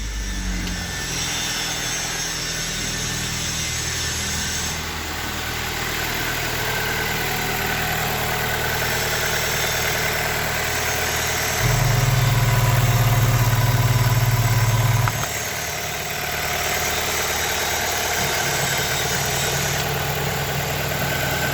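BMW N46B20A 2.0-litre four-cylinder petrol engine in an E46, idling steadily just after a start. It gets louder for about three seconds in the middle, then settles back to idle.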